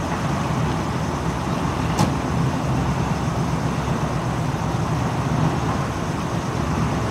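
Engines of a slow column of military vehicles, a jeep leading armoured vehicles, running steadily as they approach. There is a single sharp click about two seconds in.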